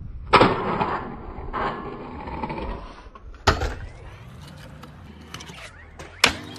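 A stunt scooter on concrete: a sharp clack as it lands, then its wheels rolling and scraping. Two more sharp landing impacts follow, one about three and a half seconds in and one near the end.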